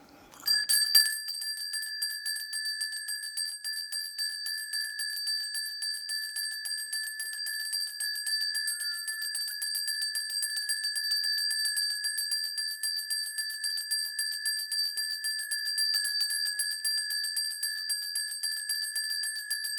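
Shaman's brass ritual bells (bangul) shaken rapidly and without a break, a continuous jingling ring that starts about half a second in. It is the sound of a mudang calling the spirits before a saju reading.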